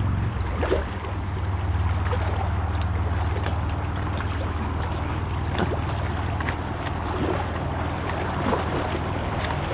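Steady low drone of a distant motorboat engine, mixed with wind on the microphone.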